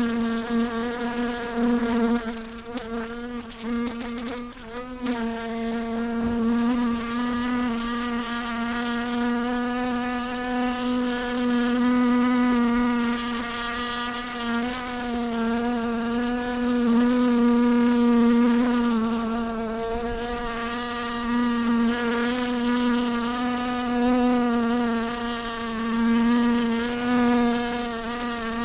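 A fly buzzing in flight: a continuous wingbeat hum with many overtones, wavering slightly in pitch and swelling and fading in loudness as it moves about.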